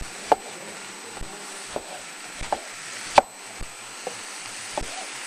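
Onion, celery and jalapeño frying in a pan with a steady sizzle as chopped tomatoes go in. About ten sharp, irregular knocks of a utensil against the pan or chopping board sound over it.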